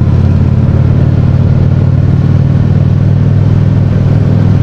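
Honda Shadow V-twin motorcycle engine running at a steady speed while riding, heard from the bike with an even rush of noise over it.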